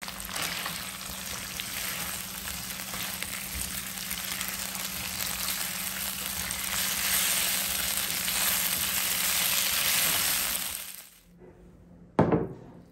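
Chicken pieces sizzling in a hot wok as they are tossed, a steady sizzle that fades out about eleven seconds in. A second later comes one short, sharp knock, the loudest sound here.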